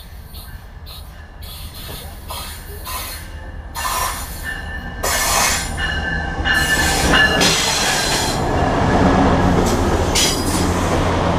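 MARC diesel-hauled passenger train pulling into the station and braking to stop, its rumble growing steadily louder as the locomotive and coaches come alongside. Several high metallic squeals come from the wheels in the middle of the approach.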